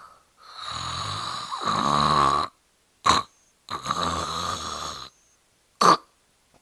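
A person snoring: two long, rattling snores, each followed by a brief sharp sound.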